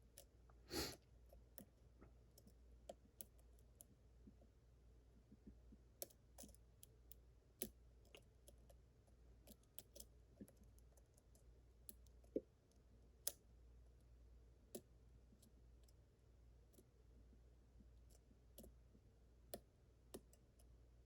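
Faint, irregular clicks and light scrapes of a lock pick and tension wrench working the pins of a Yale Superior 1-star (KM1) pin-tumbler lock, with a brief louder scrape about a second in and two sharper clicks just past halfway. The clicks are the sign of pins being probed and set as the lock is single-pin picked.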